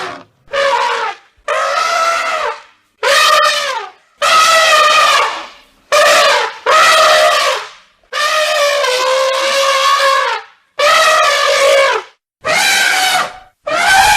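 Elephant trumpeting: a string of about ten loud, brassy trumpet calls, each from half a second to about two seconds long, separated by short gaps.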